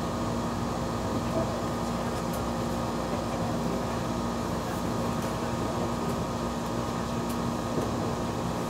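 Steady cabin noise inside a TEMU2000 Puyuma tilting electric multiple unit under way: a low running rumble with a constant hum from the train's machinery and ventilation.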